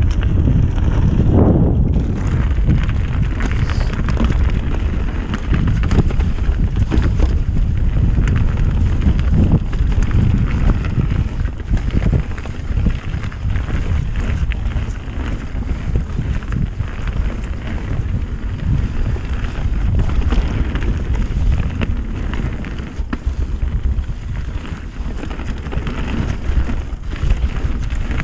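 Wind buffeting the microphone of a mountain bike's action camera as the bike descends a dirt forest trail, with the tyres rumbling over the ground and frequent rattles and knocks from the bike over bumps and roots.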